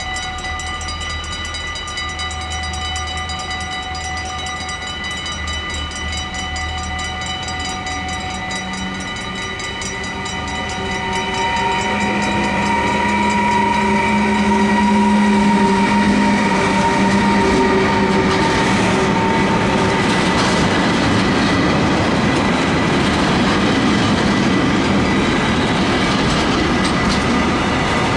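A container freight train hauled by a Siemens ES 64 F4 electric locomotive approaches and passes. Its sound grows from about ten seconds in, with a steady drone as the locomotive goes by, then the container wagons rumble and clatter past over the rails. A level-crossing warning bell rings throughout.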